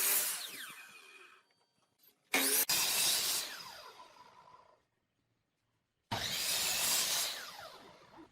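Power tool cutting wood in three short runs, each starting abruptly and winding down with a falling pitch as the motor coasts to a stop: one at the start, one about two seconds in, and one about six seconds in.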